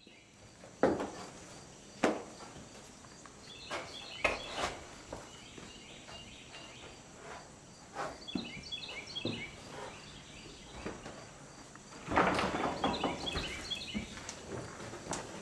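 Knocks and scuffs of someone climbing the wooden tier poles and rafters of a tobacco barn: several separate knocks, then a busier spell of knocking near the end. Birds chirp in short bursts in between.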